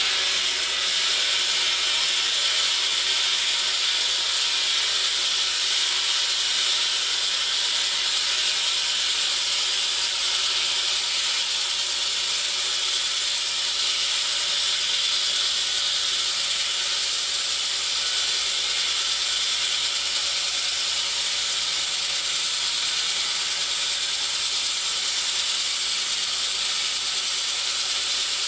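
Excavator-mounted hydraulic tunnel saw's large diamond blade spinning freely, not yet in the cut: a steady hissing whir with a few steady tones through it.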